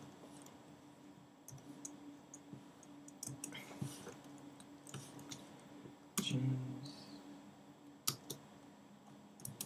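Occasional single key presses on a computer keyboard, one sharp click every second or so, over a steady low hum. A short louder sound comes just past six seconds.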